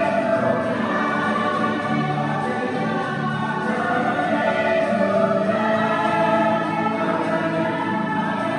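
Choir of many voices singing together, holding long notes in a slow melody.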